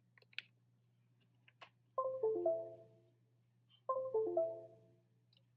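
Computer notification chime sounding twice, each a short run of notes stepping down in pitch, as the diagnostic scope is plugged into the laptop. A few faint clicks come before the chimes.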